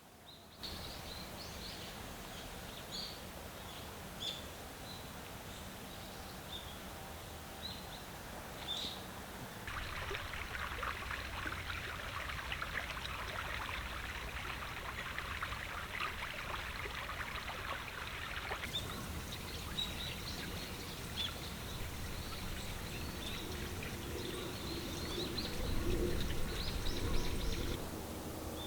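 Outdoor ambience with small birds giving scattered short, high chirps. A steady hiss runs louder through the middle stretch, and a low rumble rises briefly near the end.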